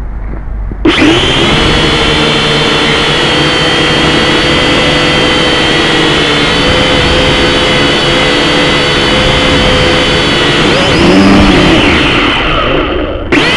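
Aircraft engines running steadily, a loud even drone with a high whine above it, cutting in abruptly about a second in.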